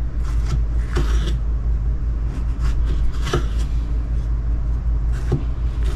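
Kitchen knife slicing a tomato on a wooden cutting board, the blade knocking the board a few times, over a steady low rumble.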